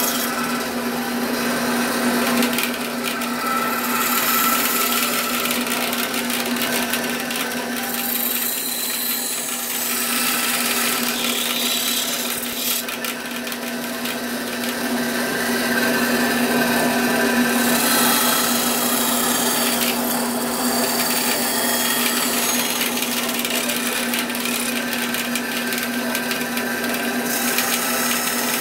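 Bandsaw running with a steady hum while its blade cuts through a workpiece. The cutting noise swells and eases every few seconds.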